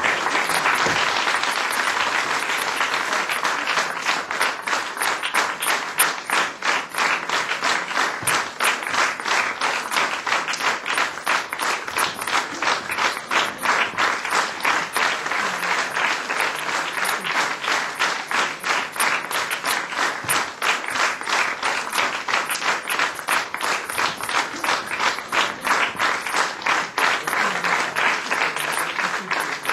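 Audience applauding, the clapping falling into a steady rhythm in unison.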